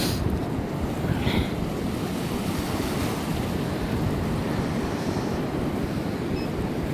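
Surf washing up the beach on an incoming tide, with wind buffeting the microphone in a steady low noise.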